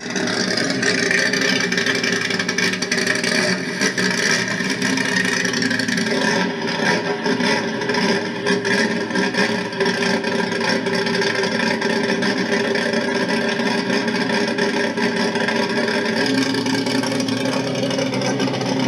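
Turismo Carretera race car engine running loud and steady, its tone shifting about six seconds in and again near the end.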